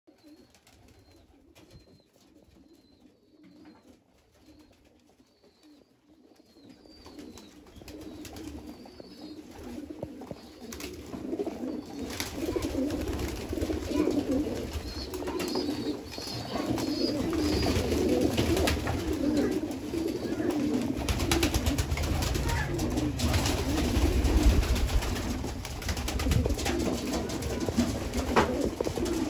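A flock of domestic pigeons cooing in an enclosed loft, quiet at first with a few faint high chirps, then swelling after several seconds into a dense, continuous chorus of overlapping coos. Scattered sharp clicks run through it.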